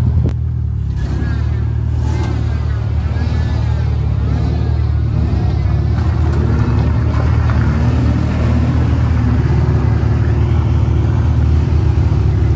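Off-road vehicle engine running with a steady low drone, at the wheel of a truck driving through deep mud.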